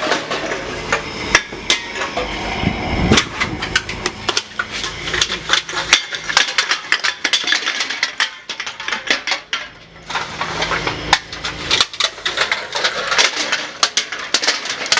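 Aluminum cans clattering and rattling against each other and the metal as they are tipped into a recycling center's can hopper, a quick irregular stream of tinny knocks. A low steady hum runs underneath and stops near the end.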